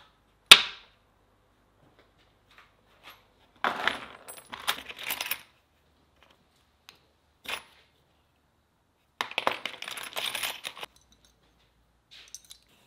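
A sharp knock about half a second in, then steel drill bits clinking and rattling against each other in a plastic tray as they are rummaged through, in two spells of a second or two each, with a few single clicks between.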